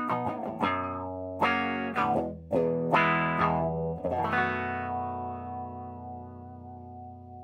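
Electric guitar played through a 1970s Shin-ei Fuzz Wah 8Tr pedal, whose fuzz circuit is the same as a Univox Super Fuzz's, distorting the notes. A few chords are struck in the first half, then a last chord is left ringing and slowly fading.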